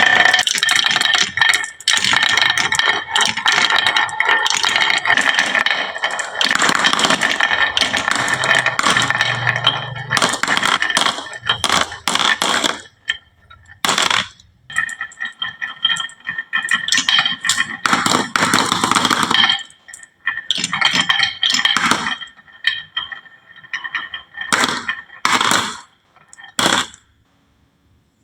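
Marbles rolling and clattering down a toy marble run. It starts as a dense, continuous rattle and clinking, then breaks into separate runs of clicks from about halfway, and stops shortly before the end.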